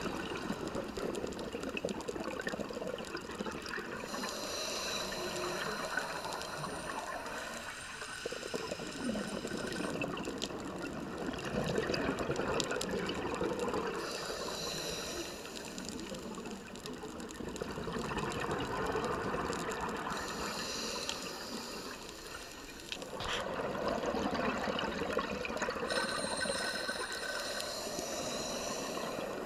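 Scuba diver's regulator breathing underwater, heard through the camera housing. About four breaths come through: each a hissing, whistling inhale followed by the gurgling rush of exhaled bubbles.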